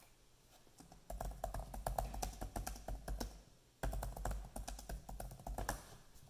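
Typing on a laptop keyboard: two quick runs of key clicks, the first starting about a second in and lasting about two seconds, the second following a brief pause and stopping shortly before the end.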